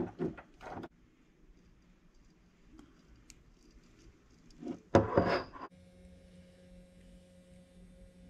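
Small handling clicks and rustles of wire and connector in an aluminium soldering jig, then a brief loud handling noise about five seconds in. Then a pistol-style soldering gun is switched on and gives a steady electrical hum as it heats the XT90 connector.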